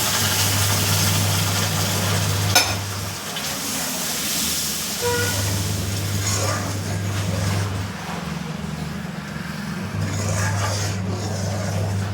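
Ghee-roasted besan, semolina and wheat-flour mixture sizzling hard as sugar syrup is stirred into it, with one sharp knock of the spoon on the pan about two and a half seconds in and softer scraping later. The sizzle eases after about six seconds. A low hum comes and goes underneath.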